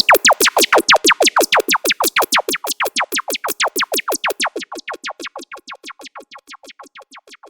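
Synthesized laser-zap sound effect of the kind used by dancehall DJs: quick downward-sweeping zaps repeating about seven times a second, fading gradually like a long echo tail.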